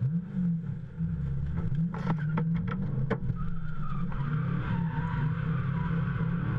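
A drift car's engine running hard, heard from inside the cabin, with several sharp cracks about two to three seconds in. From about halfway through, the tyres squeal as the car slides sideways.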